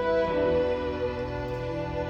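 Violin ensemble playing a slow passage of long held notes that change pitch now and then.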